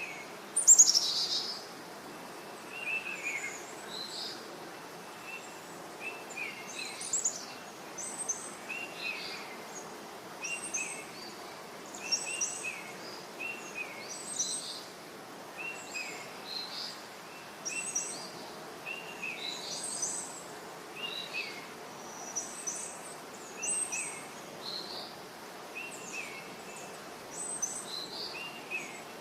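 Birds chirping: a short down-slurred call repeating about once a second, with higher, sharper chirps in between, the loudest about a second in. A steady outdoor hiss lies underneath.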